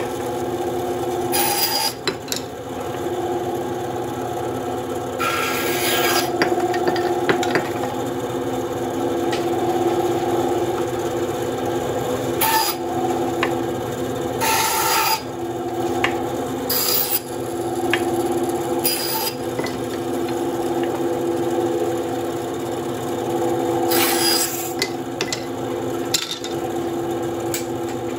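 WEN 3939 9-inch bandsaw with a 1/4-inch blade running with a steady hum, its blade cutting thin wooden strips into short pieces. Each cut is a brief rasping bite, about eight of them a few seconds apart, some longer than others.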